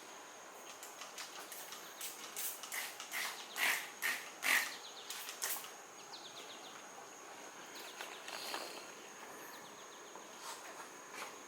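Outdoor ambience: a steady high-pitched insect drone with bird chirps. A run of short, sharp sounds comes between about two and six seconds in and is the loudest part.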